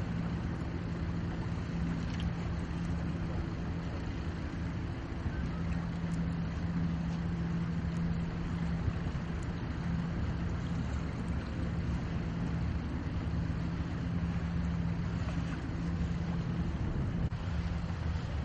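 Steady low drone of a boat engine over the noise of wind and choppy water.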